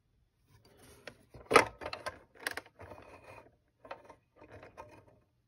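Handling noise from the multimeter's case and lid: a series of light clicks and knocks, the loudest about one and a half seconds in, with fainter rattling between them.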